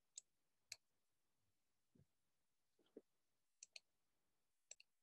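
Near silence broken by about eight faint computer mouse clicks, some in quick pairs.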